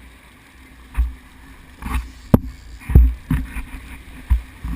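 A series of about seven irregular knocks and thumps over a faint steady background, the loudest about three seconds in.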